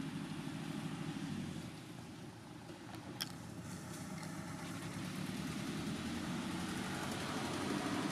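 A motor vehicle's engine running steadily, a low hum, with a single sharp click about three seconds in.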